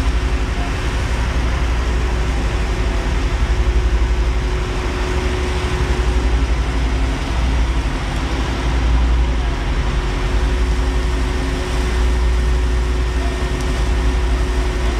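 Ship's engines running steadily, churning the water white under the stern: a heavy low rumble under a rushing wash and a steady hum.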